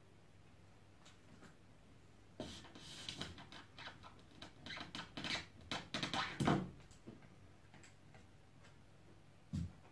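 Hand work fitting parts of a homemade hot-wire foam cutter: a run of light clicks, taps and scrapes lasting a few seconds, starting about two seconds in, then a single low knock near the end, over a faint steady hum.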